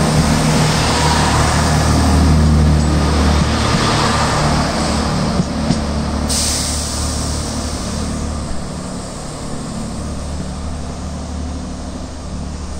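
Train's engine running with a steady low drone that fades gradually as it draws away, and a sudden hiss about six seconds in.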